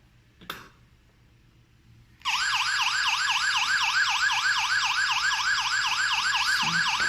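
X10 WiFi/GSM alarm system's siren going off after a sensor is triggered, a loud fast electronic warble of about four sweeps a second that starts about two seconds in, after a faint click.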